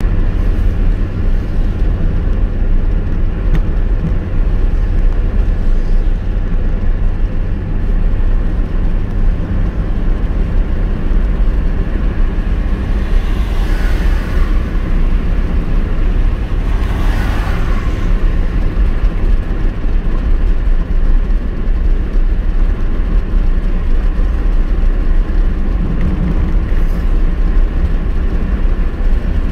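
Steady low rumble of a car's engine and tyres on the road, heard from inside the moving car's cabin, with two brief swells of rushing noise around the middle.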